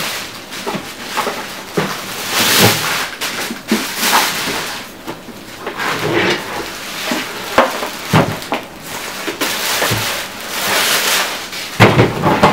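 Plastic bag crinkling and rustling in uneven bursts as it is pulled off an electric pressure washer, with a few knocks from the machine being handled on the table, the heaviest near the end as it is stood upright.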